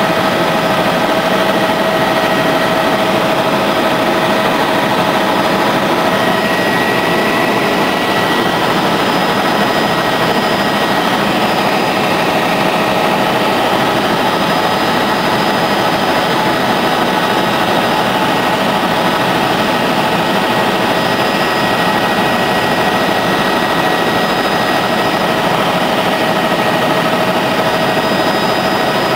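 Helicopter in steady cruising flight, heard from inside the cabin: a loud, even rush of engine and rotor noise with a constant whine over it.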